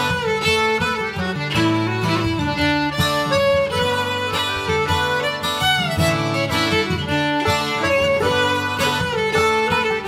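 Upbeat instrumental folk music: a strummed acoustic guitar with fiddle and accordion.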